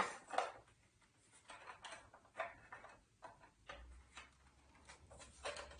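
Faint, irregular clicks and taps of plastic humidifier parts being handled and fitted together.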